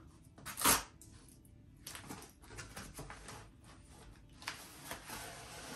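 Packaging rustling and crinkling as a mailed book is unwrapped by hand, with a short louder handling noise just under a second in.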